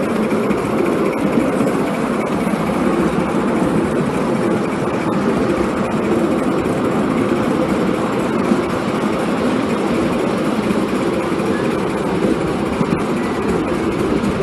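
5-inch gauge J94 Austerity 0-6-0 live steam locomotive running steadily under load.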